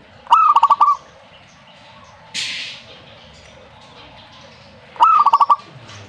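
Zebra dove singing: two phrases of its staccato cooing song, each a rising opening note followed by a quick run of about five short coos, the first near the start and the second about five seconds in. A brief hiss comes between them.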